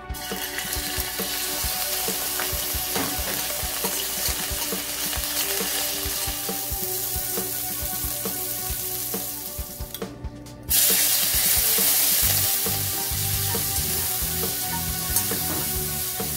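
Shrimp, then squid rings, sizzling as they fry in hot oil in a stainless steel pan. The sizzle breaks off briefly about ten seconds in and comes back louder, with soft background music underneath.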